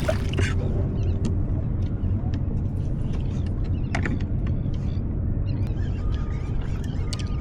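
Boat motor running steadily with a low hum, with scattered light clicks and knocks over it.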